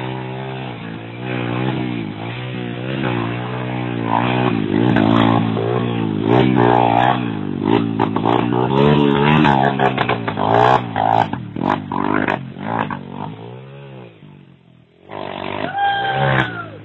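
Motorcycle engine revving up and down over and over as the bike is worked through deep mud, with scattered knocks and scrapes. The revs sink away about fourteen seconds in, then a short louder burst with a rising whine follows near the end.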